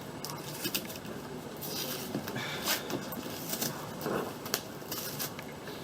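Cardboard box wrapped in packing tape being cut and picked open with a knife: scattered scrapes, rustles and small clicks.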